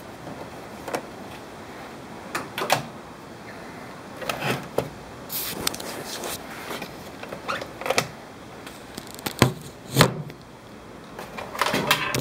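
Irregular clicks, knocks and rustles from hands handling coiled power cords and the plastic case of a portable jump starter, close to the microphone. The sharpest knocks come about nine and ten seconds in.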